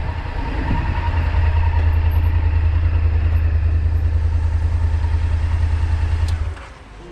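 Motorcycle engine running at low speed with a steady low pulse, cut off abruptly about six and a half seconds in as the bike is parked.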